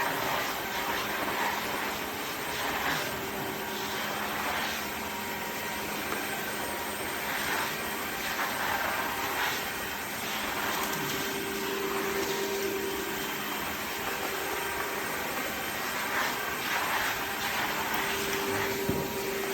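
Dreame H12 Pro wet-dry vacuum mop running in auto mode: a steady motor hum with a faint held tone, swelling softly now and then as it works the floor.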